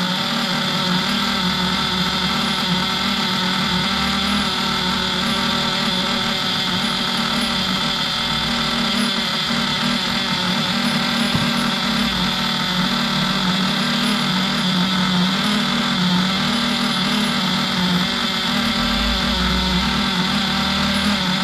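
Newly built nitro RC engine running steadily at a fast idle during its break-in.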